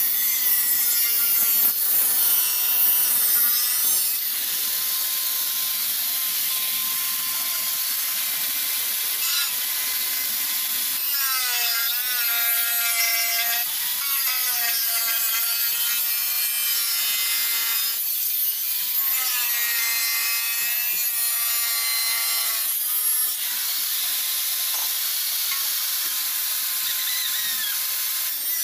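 Electric power tool working sheet metal, running without a break, its whine wavering and dipping in pitch as the tool is loaded against the metal.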